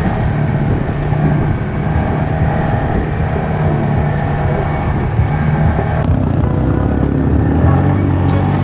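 ATV engine running at a steady cruising pace, an even drone with no big revs.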